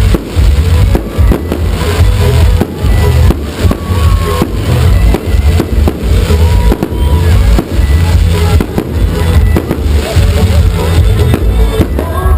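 Firecrackers going off in a rapid, irregular string of sharp bangs, over loud music with a heavy bass beat.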